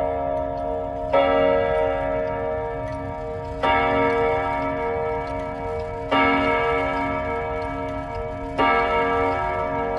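ODO 36 chime clock striking the hour: four even strikes about two and a half seconds apart, each the same bright, many-pitched ring that lingers until the next.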